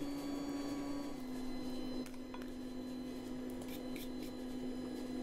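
Steady mechanical hum that drops slightly in pitch about a second in, with a few faint clicks and taps.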